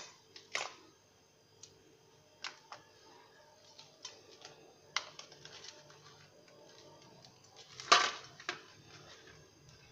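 Hardened peanut chikki being snapped into pieces and lifted off a steel plate: scattered sharp clicks and taps of brittle candy on metal, the loudest cluster about eight seconds in.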